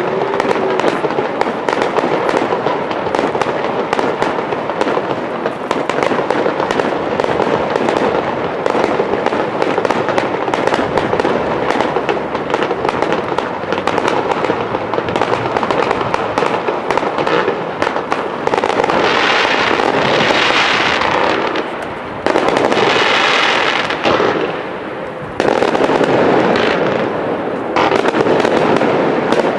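Aerial fireworks display: a rapid, continuous barrage of shell and cake bursts with dense cracking. In the last ten seconds or so come louder crackling volleys that start and stop abruptly.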